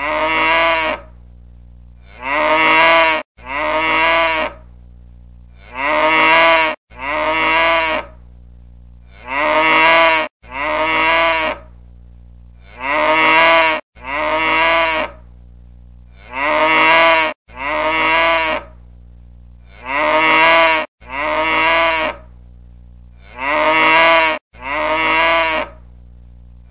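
Cow mooing, looped as a sound effect: two moos of about a second each in quick succession, the pair repeating evenly about every three and a half seconds, with the pitch sliding down at the end of each moo. A faint steady hum lies between the moos.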